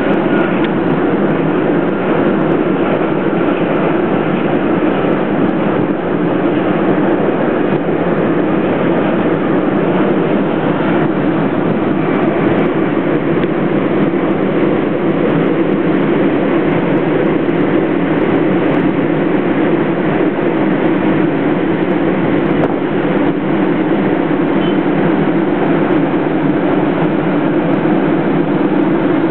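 Steady, even din of city traffic heard from a high rooftop, with no single vehicle or event standing out.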